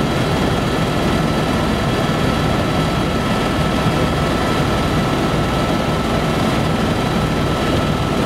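Helicopter in flight heard from inside its cabin: engine and rotor running steadily, with a thin high whine held over the noise.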